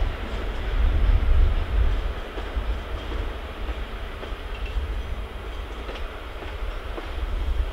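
CP Series 1900/1930 diesel locomotive moving slowly through the yard with a Series 4700 electric in tow: a steady low engine rumble with rail and wheel noise.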